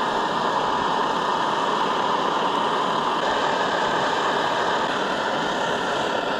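Portable camp stove burner running with a steady, even rushing hiss.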